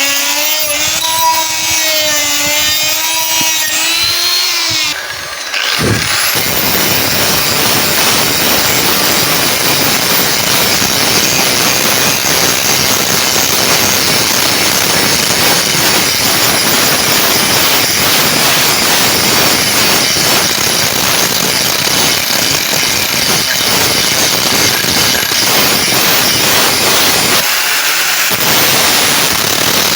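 Electric power tool, an angle grinder or polishing machine, working a steel knife blade. A steady motor whine for the first few seconds, then, after a short break about five seconds in, a dense loud grinding noise of abrasive on metal that runs steadily until near the end.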